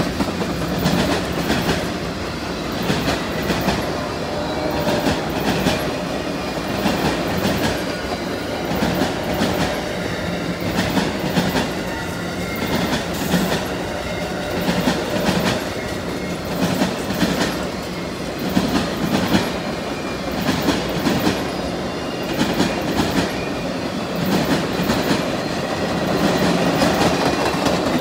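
Passenger train cars rolling steadily past close by, with steel wheels clicking over the rail joints in repeated clusters over a continuous rumble.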